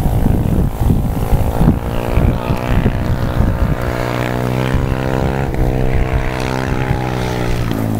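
Motorcycle engine running at a steady pitch, its note shifting slightly about halfway through. Wind rumbles on the microphone in the first few seconds.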